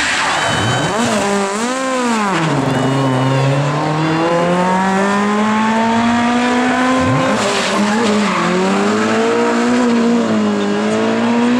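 Rally car engine at high revs, the pitch swinging up and down as the driver lifts and accelerates: a long steady climb in revs, a sudden brief drop about seven seconds in, then climbing again.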